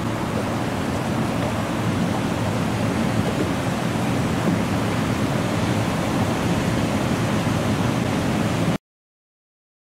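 Steady rush of river water pouring through the open gates of a lock weir and churning into whitewater below. It stops dead about a second before the end.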